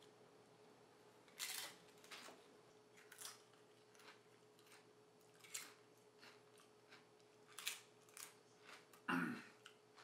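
Tortilla chips with guacamole being bitten and chewed: faint, short crunches at irregular intervals of one to two seconds, over a faint steady hum.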